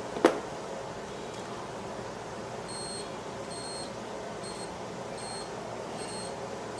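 Digital multimeter beeping: a short, high beep repeated six times, about one every 0.8 seconds, starting partway through. A sharp click, the loudest sound, comes about a quarter second in.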